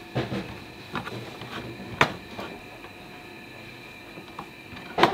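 Kitchen knife knocking on a wooden cutting board while cucumber is cut for a garnish: a few separate sharp knocks, the loudest about two seconds in and another right at the end.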